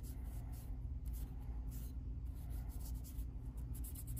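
A cloth gun-cleaning pad rubbing along a pistol slide in quick repeated wiping strokes as it scrubs off powder fouling, with a faint scratchy sound. A steady low hum sits underneath.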